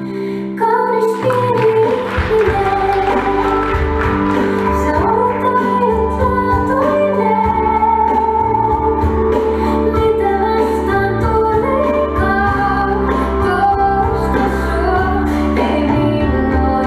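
A woman singing a slow song over keyboard accompaniment, with long held notes. The full accompaniment comes in about half a second in.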